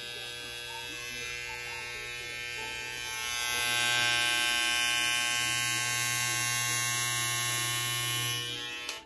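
Gold cordless electric hair trimmer running with a steady buzz as it trims the beard line. It grows louder about three seconds in and is switched off just before the end.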